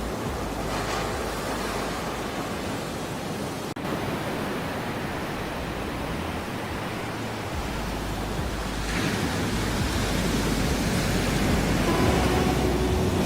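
Ocean surf: a steady wash of breaking waves, swelling about a second in and again about nine seconds in. Near the end a few steady held tones come in under the surf.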